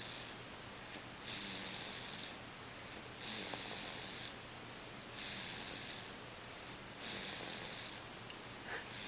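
Baby snoring in his sleep: a raspy, hissing snore about every two seconds, each lasting about a second, five in all, in a steady rhythm.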